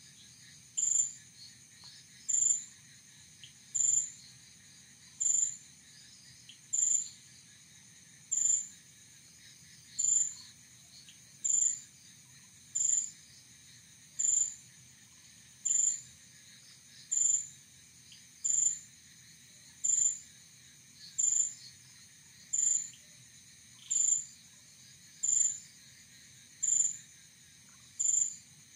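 Nighttime chorus of insects and other night creatures: a steady high drone, with one short, high, sharp call repeating very evenly about every second and a half.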